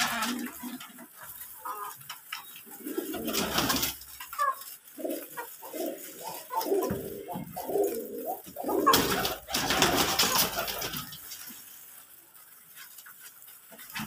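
Domestic pigeons cooing over and over, several at once, with a couple of longer bursts of scuffling noise about three seconds in and again around nine to eleven seconds.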